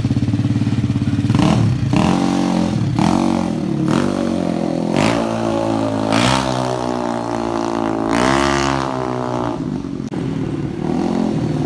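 Yamaha Mio scooter with a built-up 215cc four-valve DOHC engine, idling with a steady pulsing beat and then revved up and down several times as it rides off. It holds a long high rev about eight seconds in, and its pitch climbs again near the end.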